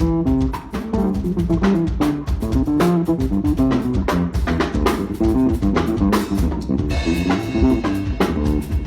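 Band music: a drum kit keeps a steady beat under a moving bass line and guitar, with a brighter crash of sound late on.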